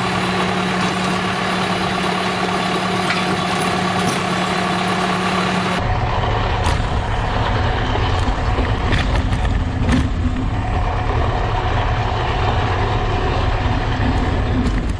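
Tractor engine running steadily as it drives a Jansen TBG-300 PTO earth auger boring into the ground. About six seconds in, the sound changes to a deeper rumble with a few sharp clicks as the auger bites through stony soil.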